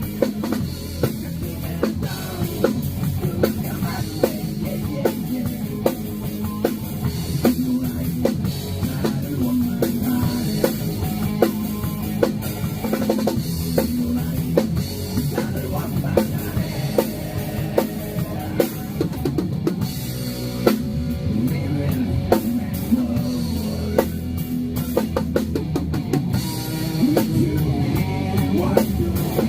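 Rock band playing together in rehearsal: a drum kit keeping a steady beat with kick and snare under sustained guitar notes.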